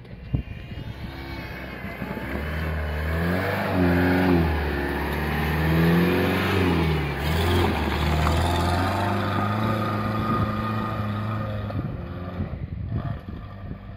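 Toyota Hilux pickup's engine revving as it drives past close by and pulls away uphill. The revs rise and fall several times as it passes, then hold steadier under load and fade near the end.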